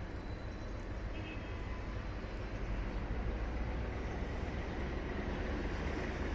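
Engine of a DE 24000-class diesel locomotive, 2400 hp, running deep and steady, growing louder about halfway through.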